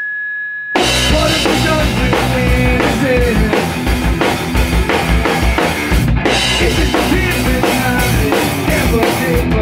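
A steady high tone for under a second, then a rock band comes in hard: drum kit with kick and snare, bass and electric guitar playing together.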